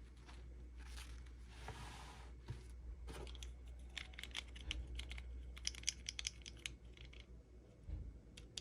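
Small toy packaging being opened and handled by hand: a brief rustling tear of plastic or paper wrapping, then a run of quick, light clicks and taps of small plastic parts.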